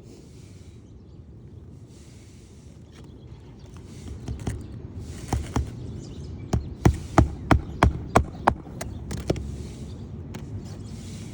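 Nails being driven into asphalt roof shingles: a run of about nine sharp strikes, roughly three a second, through the second half. Short bursts of hiss recur every second or two.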